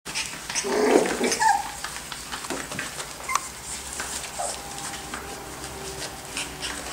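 Five-week-old pumi puppy scrabbling in a wicker basket and onto a tiled floor: small scratches, clicks and scuffs, with a short whine about a second in.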